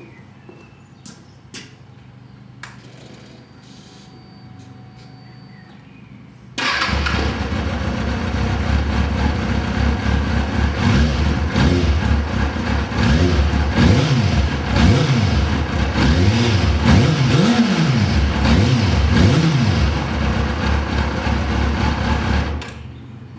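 Kawasaki ZX-6R inline-four through its stock exhaust silencer: after a few footsteps and clicks, the engine starts about a third of the way in, runs at idle, is blipped up and down several times in quick revs, then is switched off and stops shortly before the end.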